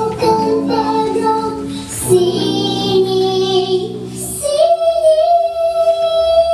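Children's song: a young voice singing a melody over an instrumental backing track, then holding one long note for the last two seconds.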